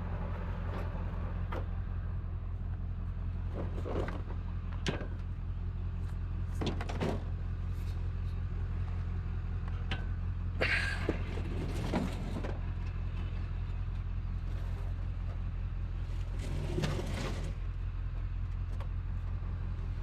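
Steady low hum of an idling vehicle engine, with scattered knocks and a few short scrapes as a heavy exercise machine is shifted by hand.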